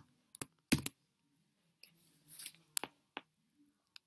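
A few separate computer keyboard keystrokes, the loudest about three quarters of a second in, with a short soft hiss around two seconds in.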